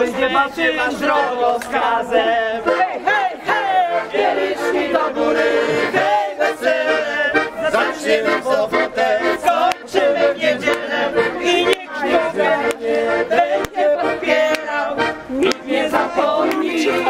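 A group of voices singing and shouting a lively folk song, accompanied by an accordion.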